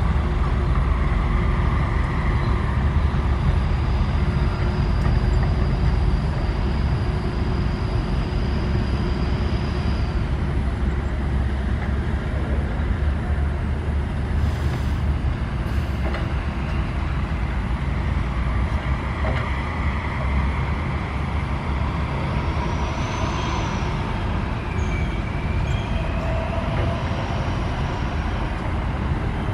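SANY SY135F excavator's diesel engine running under load, a steady low rumble, with faint high whines that rise and fall near the end.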